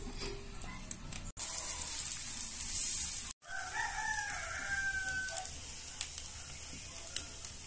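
A rooster crowing once in the background: one long call lasting about two seconds, starting around halfway. Before it, a steady hiss grows louder for a couple of seconds and the sound breaks off abruptly twice.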